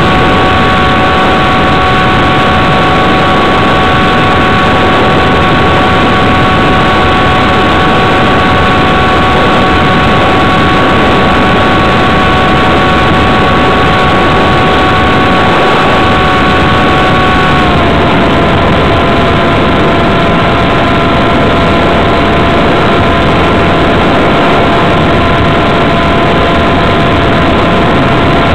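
Radio-controlled model plane's motor and propeller running steadily as heard from a camera mounted on the airframe, a loud whine over rushing air noise. About two-thirds of the way through the pitch drops slightly as the throttle is eased back, then holds steady.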